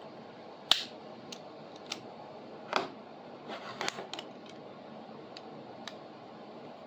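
Scattered light clicks and taps as a straight edge and rotary cutter are handled on a piece of leather being cut into strips, over a faint steady hiss.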